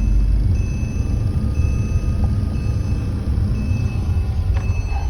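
Porsche 987.2 heard from inside the cabin while driving: a steady low rumble of engine and road noise, with a short high beep repeating about once a second.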